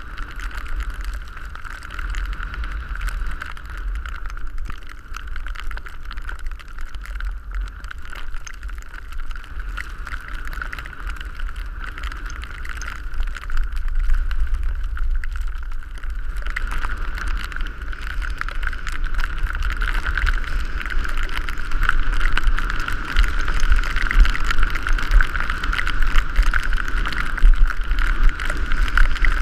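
Wind rushing over the microphone of a skier's camera during a downhill run, a low rumbling buffet with the steady hiss of skis sliding on snow. It grows louder from about halfway through.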